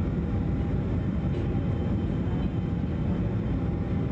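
Jet airliner cabin noise on approach: a steady low rumble of engines and airflow heard from a window seat near the wing engine, with a faint steady whine above it.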